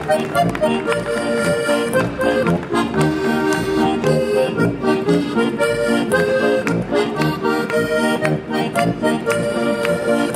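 Traditional German folk dance music with a steady, even beat and a melody played over sustained chords.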